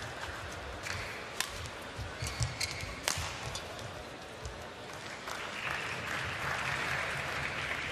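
Badminton rally: a series of sharp racket-on-shuttle hits, then from about five seconds in the arena crowd applauding.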